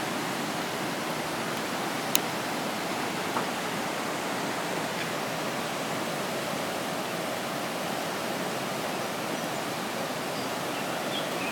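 Fast, turbulent floodwater of a creek in spate, rushing steadily as a continuous even hiss. A brief sharp click about two seconds in.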